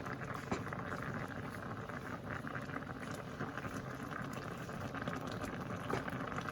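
Coconut milk liquid boiling and bubbling in a pot around a steaming fish, a steady simmering crackle.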